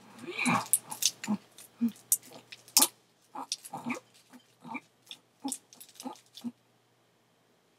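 Fox squirrel chewing a nut held in its paws: a run of short, irregular crunching clicks that stops about six and a half seconds in.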